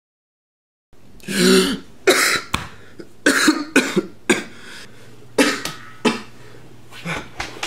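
A young man coughing in a string of harsh coughs, some in quick pairs, after about a second of silence.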